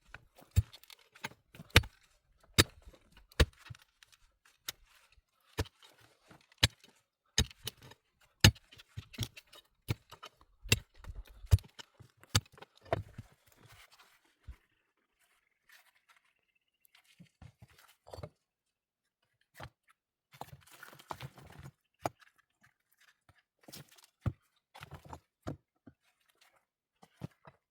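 A series of sharp knocks and clicks, about one a second for the first half, then sparser, with some crunching and rustling in between.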